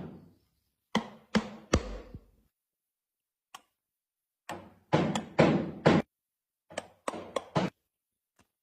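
Sharp knocks of a tool striking wood, each with a short ringing decay, in three quick clusters of three to five strikes separated by pauses.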